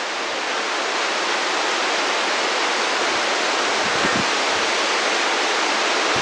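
Heavy monsoon rain pouring steadily, a dense, even hiss, with one soft low thud about four seconds in.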